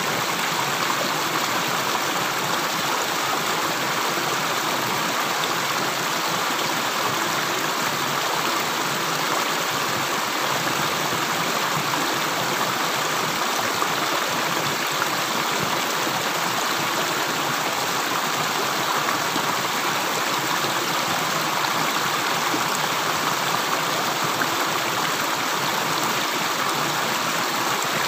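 Running water flowing steadily, an even continuous rush with no separate drips.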